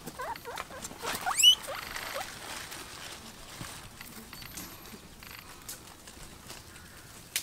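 Guinea pig squeaking: a run of short rising squeaks, the loudest a quick squeal that climbs very high about a second and a half in. Softer rustling and light clicks follow as the animals feed.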